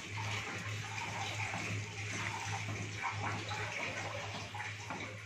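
Chilli chicken and its thick sauce sizzling and bubbling in a wok as a silicone spatula stirs it, a steady crackling hiss over a low hum.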